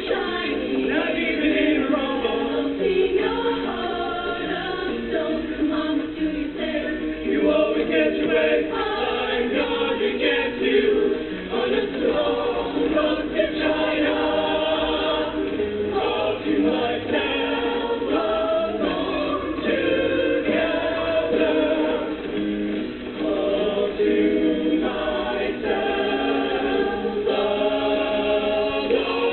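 A vocal group singing together in harmony, a continuous choral song.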